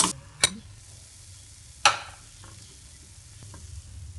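Three sharp metallic clanks, the last about a second and a half after the second and the loudest, then a few faint taps: a stainless steel pan lid and frying pan being handled on the gas stove's iron grate.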